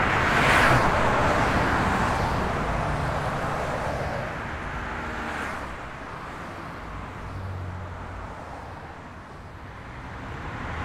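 Road traffic at a junction: a car goes by with tyre hiss on the wet road, loudest about half a second in and fading over the next few seconds, then a quieter low hum of car engines.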